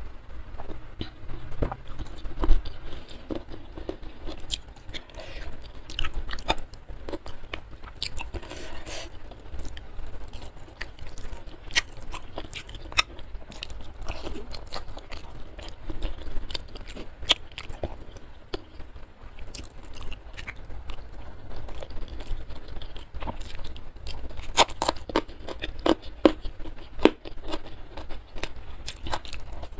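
Close-miked eating: chewing and biting Bali-spiced chicken feet and rice, with a steady run of short, sharp crunching and wet mouth clicks that grow denser and louder near the end. A single loud knock comes about two and a half seconds in.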